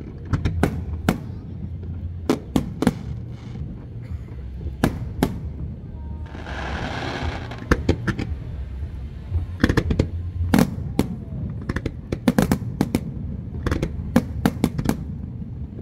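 Fireworks display: aerial shells bursting in quick, irregular succession as sharp bangs, with a dense hissing stretch lasting about a second and a half around six seconds in, over a steady low rumble.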